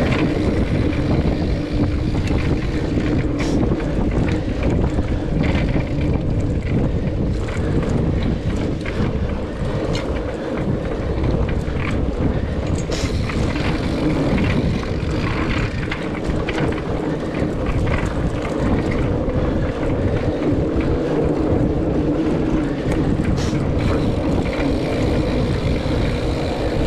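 Mountain bike ridden over a dirt forest trail: a steady rumble of tyres on the ground and wind buffeting the microphone, with scattered small clicks and knocks from bumps.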